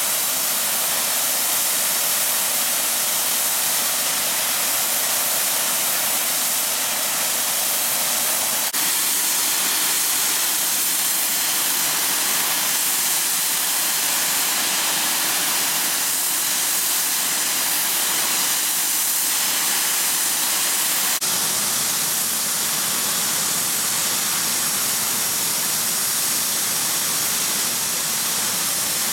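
Steam locomotive letting off steam in a loud, steady hiss with no exhaust beats: Bulleid Merchant Navy class Pacific 35018 'British India Line' standing with steam up.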